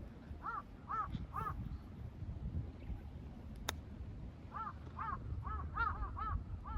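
A crow cawing: three caws about half a second apart, then a quicker run of about eight caws near the end. Low wind rumble sits underneath, and there is a single sharp click about midway.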